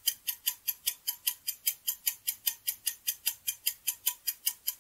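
Clock-ticking sound effect for a quiz countdown timer: sharp, even ticks at about five a second.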